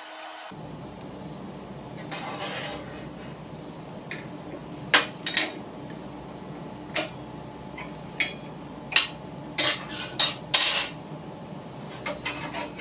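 Irregular metallic clinks and knocks from a spanner and steel parts being handled in the blade area of a stopped vintage Wadkin AGS table saw, as the riving knife and throat plate are taken off. A steady low hum runs under the clinks from about half a second in.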